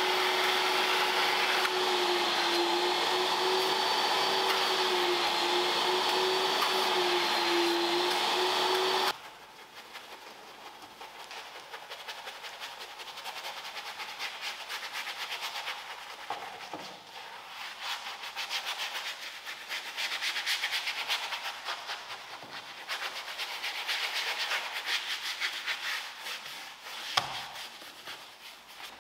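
Karcher vacuum cleaner running steadily with a slightly wavering whine, switched off about nine seconds in. Quieter scratchy rubbing and scrubbing strokes follow, with one sharp click near the end.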